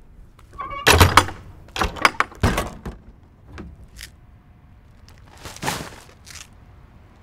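Plastic wheelie bin being used to throw out trash: a cluster of loud knocks and thuds of the bin and lid between about one and two and a half seconds in, then a rustling thump as a bag is dropped in a little after five seconds.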